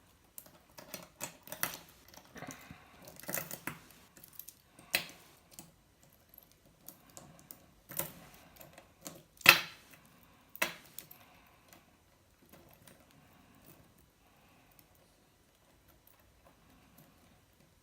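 Metal links of a Leatherman Tread multitool bracelet clicking and clinking as they are handled and fitted together: scattered sharp clicks, the loudest about nine and a half seconds in, thinning to faint handling noise over the last several seconds.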